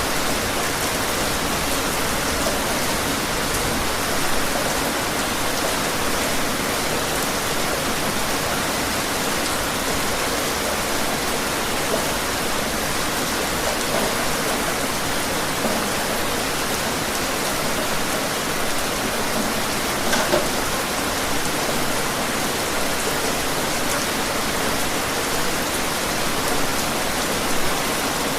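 Steady rain falling outdoors, a constant hiss with scattered louder drop hits here and there.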